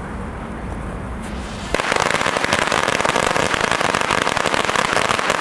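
A string of small firecrackers going off, a rapid, continuous run of cracks packed too closely to count, starting a little under two seconds in and lasting about three and a half seconds.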